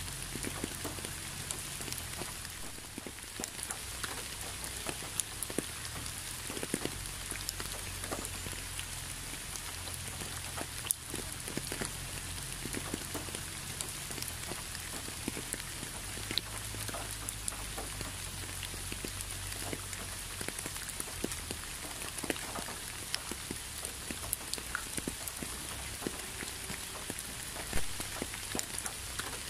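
Steady rain falling, with many individual drops ticking irregularly on a hard surface close by.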